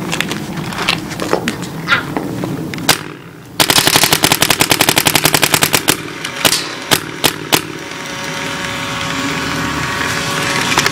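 Planet Eclipse Etek 3 AM paintball marker firing: a single shot about three seconds in, then a rapid string of shots at about ten a second for a little over two seconds, then four more single shots.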